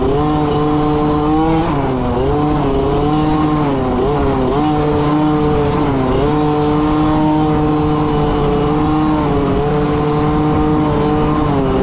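Dirt bike engine running under throttle close to the microphone. Its pitch drops and climbs back a few times as the rider backs off and gets back on the gas, then holds steady for several seconds.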